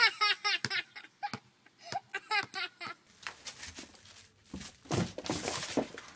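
A child laughing in quick high bursts, then a ferret scrabbling and rustling as it climbs into a plastic trash bin.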